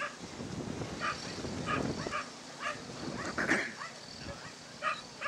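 Basenji giving short, high yips and whines while restrained at the start line, eager to chase the lure, with a louder cry about three and a half seconds in.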